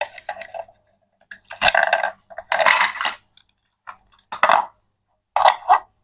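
Small hard objects clattering and clinking in several short bursts with gaps between them.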